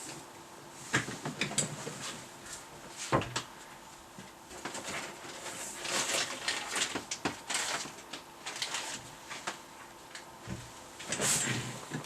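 Irregular clicks, knocks and short scrapes of objects being handled, with the loudest knocks about a second in, about three seconds in, and again near the end.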